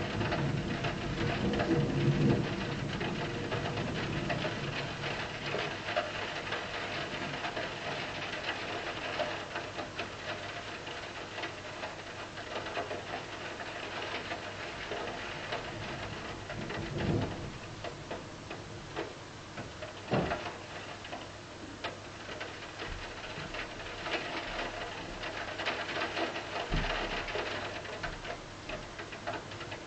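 Rain falling and pattering, a dense run of fine taps over a steady hiss, with a few louder single knocks in the second half. A low rumble fades out in the first couple of seconds.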